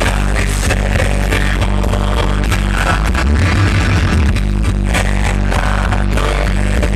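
Live rock band playing loud, with heavy bass notes and a steady drum beat.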